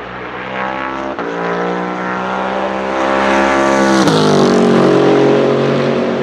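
Bentley Continental GT3 race car's 4.0-litre twin-turbo V8 accelerating hard with a quick upshift about a second in. The engine note climbs, then drops sharply as the car passes about four seconds in, and it is loudest just after as the car pulls away.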